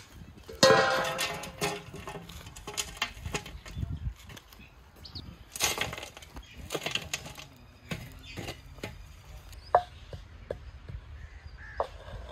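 Hot charcoal embers being shovelled onto the metal lid of a biryani cooking pot: scraping and clinking of coals on metal, with a loud clang about half a second in. The embers on the lid slow-cook (dum) the sealed biryani.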